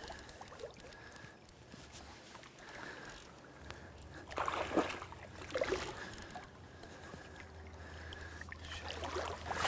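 Water splashing in a few short bursts as a large hooked rainbow trout thrashes at the surface beside a landing net in shallow river water. The splashes come about halfway through and again near the end.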